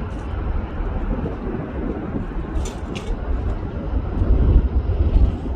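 Wind buffeting the microphone: an uneven, gusting low rumble with a steady rush behind it. Two brief high clicks come a little past halfway.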